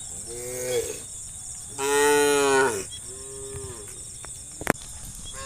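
Cattle mooing: three calls, the middle one, about two seconds in, long and the loudest. A single sharp click comes near the end.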